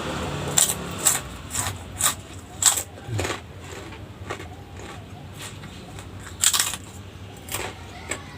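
Close-up eating sounds: irregular crunchy bites and chewing of crisp food, with a cluster of sharp crunches in the first few seconds and a couple more near the end.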